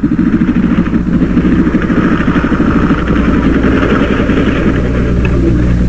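Motor sled's 8-horsepower gasoline engine running steadily.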